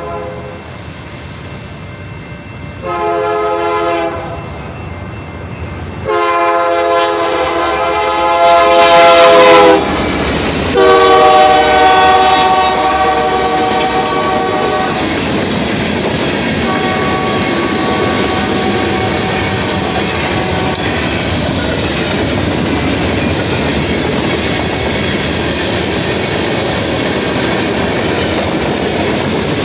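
Union Pacific freight locomotive's air horn sounding a run of blasts for the grade crossing: a short blast, then a long, loudest one, then two more, the last one fainter. Under and after the horn, the steady rumble and clickety-clack of the manifest train's freight cars rolling past at speed.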